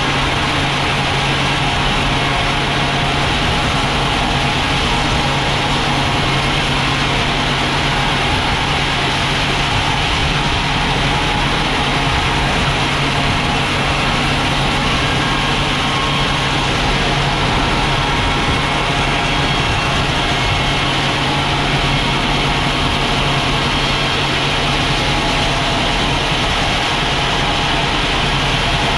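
Sawmill machinery running steadily, a constant engine-like hum under a dense hiss, with no starts, stops or changes.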